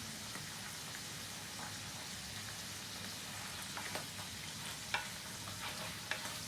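Frying pan of chicken and mushrooms sizzling with a steady faint hiss, with a few light knocks from about three and a half seconds in as food is stirred or added.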